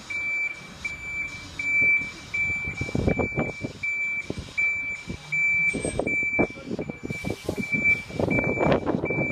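Articulated lorry's reversing alarm beeping steadily at one high pitch, about twice a second, as the lorry manoeuvres. Louder rumbles from the lorry's diesel engine come and go beneath it, about three seconds in, around six seconds and near the end.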